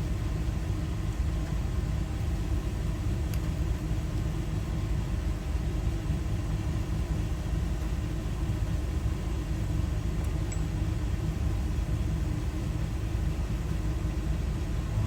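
Steady low background rumble with a constant hum, unchanging throughout, with two faint small clicks, one a few seconds in and one about two-thirds of the way through.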